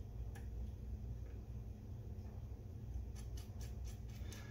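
Small screws being tightened to fix a toggle switch to its metal mounting plate: one light click about a third of a second in, then a run of quick, light metal clicks, about five a second, from about three seconds in, over a steady low hum.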